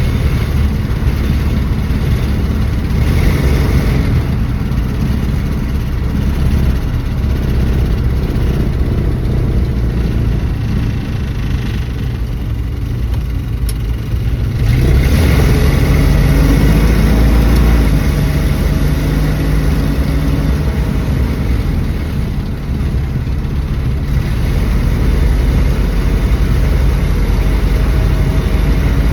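1974 Dodge Dart running while being driven, with a continuous low engine and road noise that gets louder about halfway through as the car speeds up.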